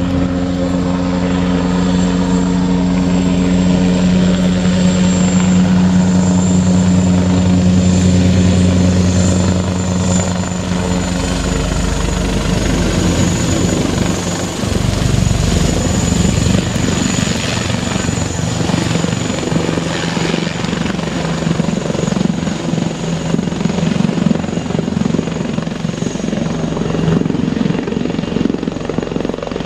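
Eurocopter Tiger HAD attack helicopter flying: a steady rotor drone with a thin high turbine whine. About halfway through it turns rougher and choppier, a fast beating of the blades.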